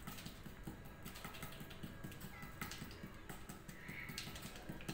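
Two fingertips patting a ball of rice-flour and jaggery anarsa dough flat on a plastic sheet: a long run of quick, light, soft taps.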